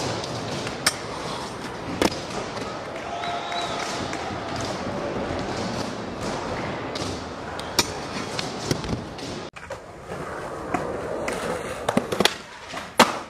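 Skateboard wheels rolling over concrete and ramp surfaces, with several sharp clacks of the board popping and landing.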